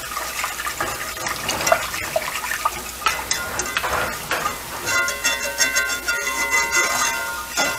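A wire whisk clicks and scrapes around a skillet, stirring chicken broth into a butter-and-flour roux, with the liquid sloshing. About five seconds in, a steady tone made of several pitches sounds for nearly three seconds.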